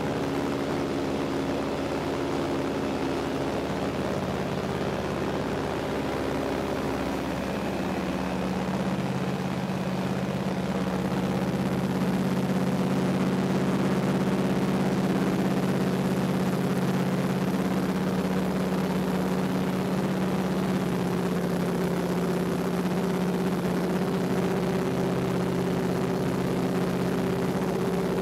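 Light propeller plane's piston engine running steadily in flight, heard from inside the cabin, getting a little louder about ten seconds in.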